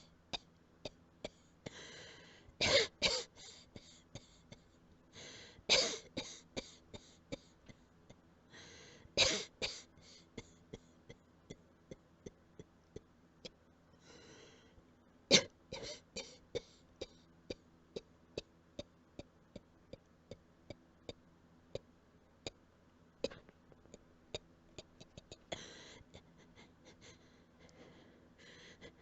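A person coughing quietly in short fits, loudest about 3, 6, 9 and 15 seconds in, with breaths heard between the fits. Faint, regular clicks, about two a second, run underneath.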